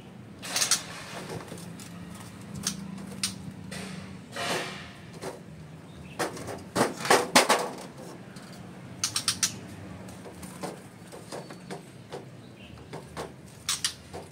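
A series of sharp clicks and knocks, some coming in quick runs of several, over a low steady hum.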